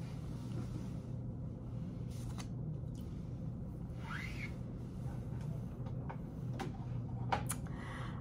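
Quiet office room tone with a steady low hum, broken by a few faint clicks and a brief faint rising sound about halfway through.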